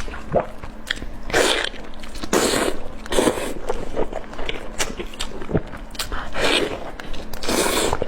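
Close-miked eating: wet chewing clicks throughout, with about five louder, short noisy bursts of biting and sucking at the food.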